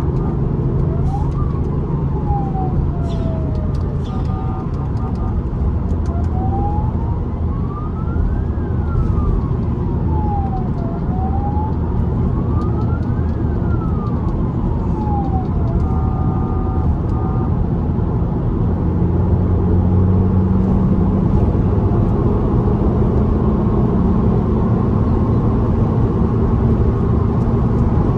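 Police-style siren fitted to a car, wailing in slow rising and falling sweeps, with short bursts of alternating two-note tones; it stops a little after halfway. Steady car engine and road noise run underneath.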